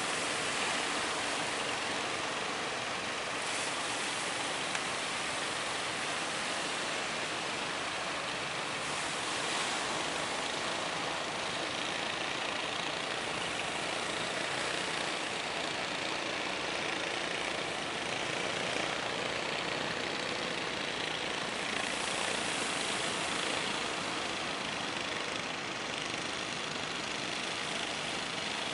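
Steady wash of breaking surf and wind, with a wooden fishing boat's engine running under it.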